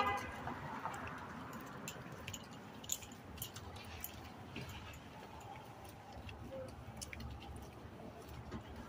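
Faint downtown street ambience with a low rumble and scattered light clicks and ticks. It opens with one brief, loud pitched sound.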